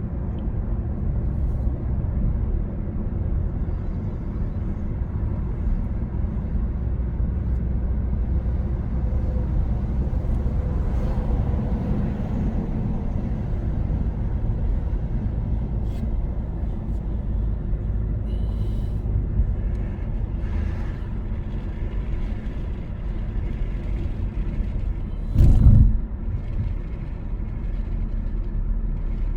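Steady low rumble of road and engine noise heard from inside a moving car, with one short, loud low thump near the end.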